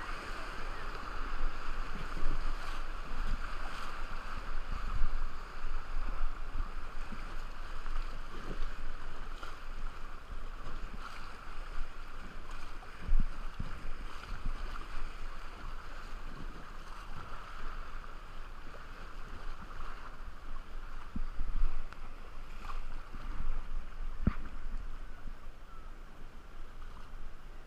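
Rushing river water around a raft on a white-water run, with wind buffeting the microphone and occasional short knocks.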